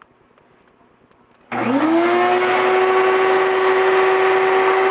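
Wet/dry shop vacuum switched on about a second and a half in, its motor whine rising quickly as it spins up, then running steadily with a loud rushing hiss.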